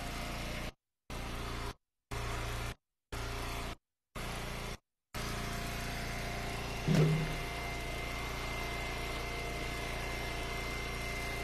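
Gas engine of an Eastonmade hydraulic log splitter idling steadily; the sound cuts out to silence five times in the first five seconds. About seven seconds in comes a heavy thud, followed by a thin high whine.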